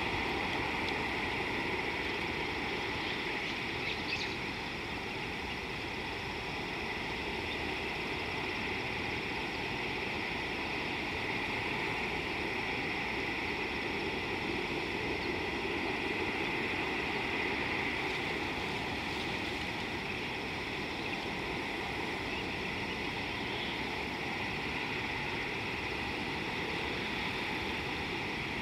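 Steady outdoor background noise: an even, unbroken hiss with no distinct animal calls, and a faint click about four seconds in.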